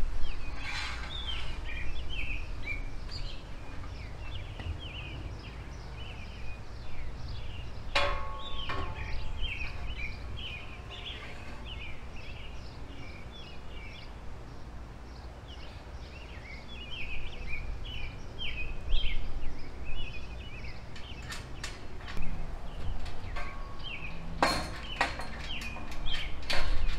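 Small birds chirping and singing continuously, with a single ringing metallic clank about eight seconds in and a short cluster of knocks near the end as metal strut rails are handled.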